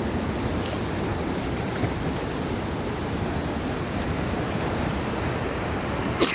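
Eagle River in flood at about 7,400 cfs, rushing steadily over rocks and the flooded bank in a continuous noise of fast water. A sharp click sounds just before the end.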